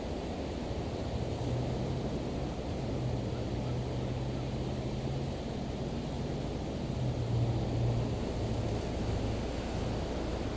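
Low engine drone that comes in about a second in, swells, then fades near the end, over the steady rush of ocean surf and wind.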